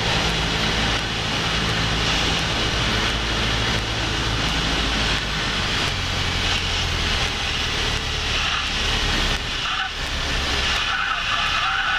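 Cessna 172P's four-cylinder Lycoming engine and propeller running at reduced power on final approach, heard from inside the cockpit, the pitch shifting a little as the power is adjusted. A higher-pitched sound joins near the end as the plane comes over the runway to land.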